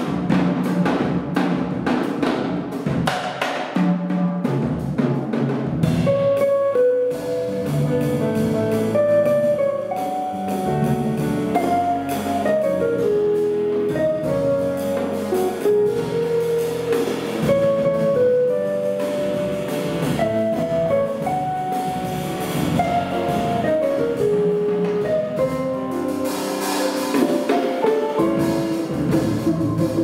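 Live jazz quartet playing: the drum kit carries the first few seconds with busy strokes, then about six seconds in a melody of single notes comes in over the drums and continues.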